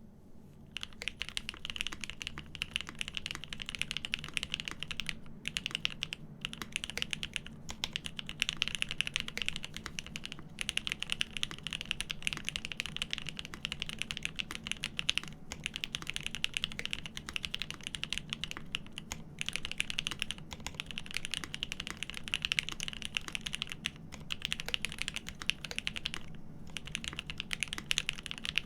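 Fast continuous typing on a GEON F2-84 mechanical keyboard with Cherry Top SP Star switches on an aluminium plate, a dense run of keystroke clacks broken by brief pauses. The keyboard is lubed with Krytox and fitted with Poron plate foam and 62g springs.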